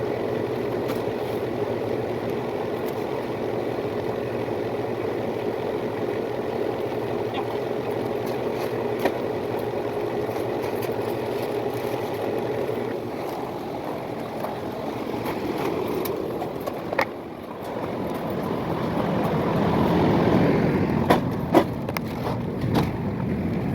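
Steady mechanical running noise, engine or machinery, with a constant hum. It dips briefly about seventeen seconds in, then swells again, with a few sharp clicks near the end.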